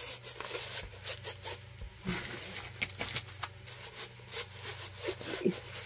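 Hands handling a diamond painting kit's packaging and tool kit: light rustling with a string of small irregular clicks.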